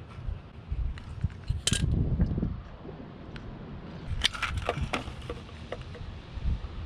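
Scattered light metallic clinks and knocks of handling work, with a cluster about two seconds in and another about four seconds in, over a low rumble.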